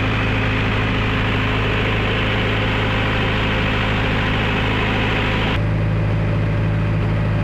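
62.5 kVA silent diesel generator set running steadily with a deep hum. About five and a half seconds in, the sound changes suddenly: the hiss above it drops away and a second low tone comes in.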